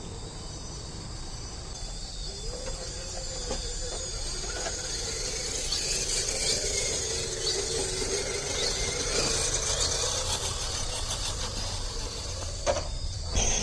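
1/10-scale RC rock crawler's electric motor and geared drivetrain whining as it crawls, the pitch wavering and slowly rising with the throttle, with a sharp knock near the end.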